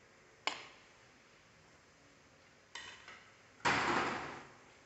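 Kitchen utensils knocking and clattering against a steel pressure cooker pot while spice powders are tipped in: a sharp tap about half a second in, a softer clatter near three seconds, and a louder clatter just before four seconds that fades over about a second.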